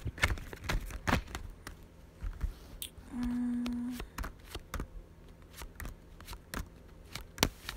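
A woman's brief, steady closed-mouth hum ('mmm') about three seconds in, among scattered small clicks and taps.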